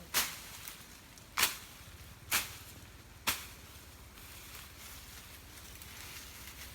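Four sharp chopping strikes about a second apart, then a quieter stretch without strikes.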